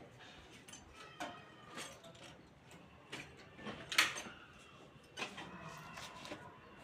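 Scattered knocks and clicks at uneven intervals, the loudest about four seconds in.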